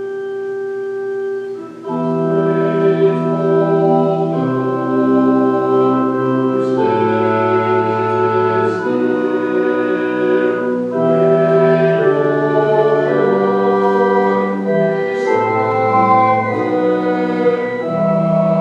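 Church organ playing a slow hymn-like piece in held chords that change every second or two. It starts with a quieter held chord, and the full chords with bass come in about two seconds in.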